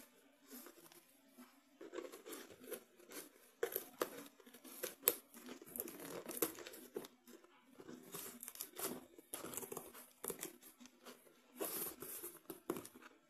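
Steel scissors cutting through the packing tape and cardboard of a parcel, with tape tearing and cardboard crinkling in irregular snips and rips. The loudest rips come about five seconds in and again near the end.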